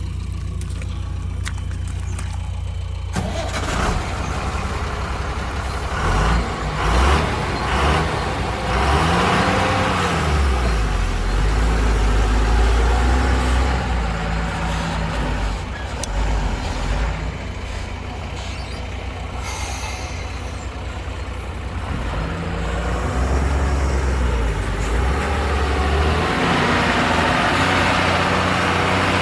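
Heavy diesel engine running and working, its pitch rising and falling as it revs under load, getting louder over the last few seconds.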